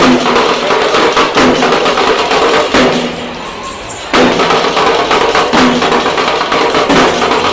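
Parai frame drums played by a group in a fast, loud, dense rhythm. The beating eases off for about a second near the middle, then comes back at full strength.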